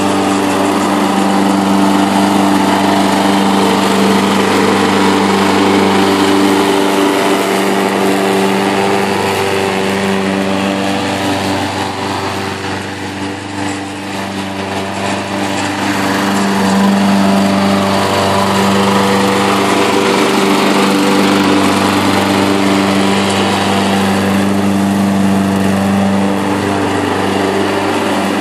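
Single gas engine of a remote-controlled, converted Craftsman walk-behind lawn mower running steadily as the mower drives across the lawn. It grows fainter about halfway through as the mower moves farther off, then louder again.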